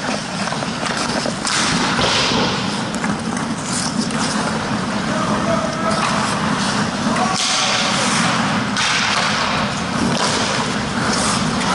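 Ice hockey skate blades carving and scraping on rink ice, with several louder hissing scrapes, under a steady noise from the rink and faint shouts from players.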